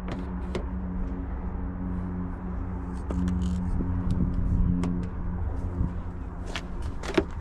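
Car door handles on a sedan being pulled, giving a handful of sharp clicks, the loudest near the end, over a steady low hum.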